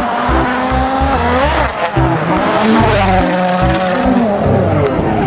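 Racing car engine sound effect revving, its pitch rising and falling several times, over background music.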